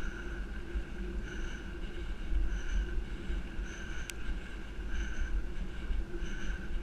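Bicycle tyres rolling fast over a gravel forest track, with wind rumbling on the bike-mounted camera's microphone. A faint tone swells and fades about every second and a quarter, and a short high chirp sounds about four seconds in.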